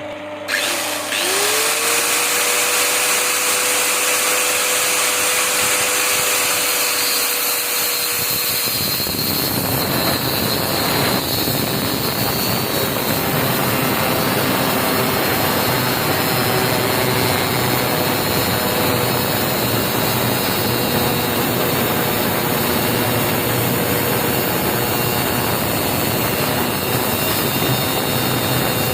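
An electric motor spins up to speed and runs steadily with a whine. About nine seconds in, a louder rough grinding noise sets in and carries on steadily.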